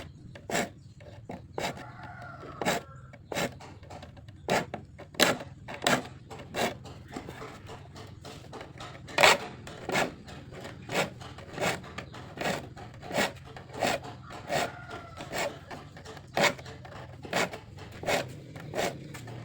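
A metal file rasping across the teeth of a hand saw to sharpen them, in short, evenly paced strokes of about one and a half a second, each stroke followed by a brief pause.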